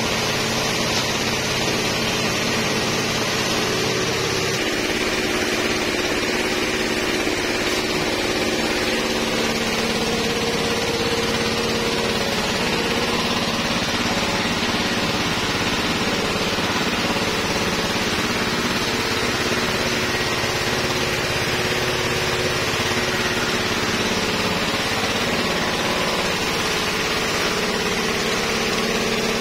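Motor-driven pressure sprayer running steadily while disinfectant is sprayed through the hose wand, a constant drone with hiss and no change in pace.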